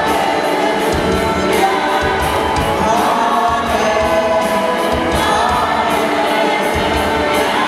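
Church choir of men and women singing an upbeat gospel song over a steady beat.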